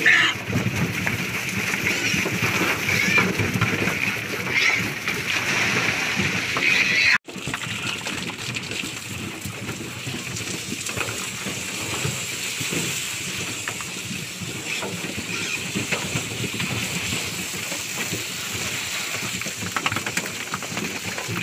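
Garden hose spraying water over a truckload of piglets and onto the steel truck bed, a steady splashing hiss, washing dirt off the piglets. Piglets squeal now and then in the first few seconds.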